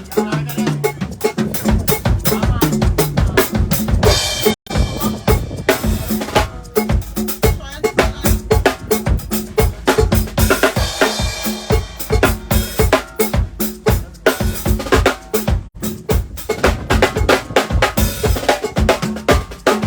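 Drum kit played fast and loud, with rapid kick and snare hits and cymbal washes three times; the kit stops sharply for an instant about four and a half seconds in.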